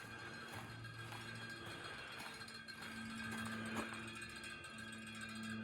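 Faint alarm-like drone of a few steady low tones that come and go and shift in pitch, with the higher tone strongest in the second half.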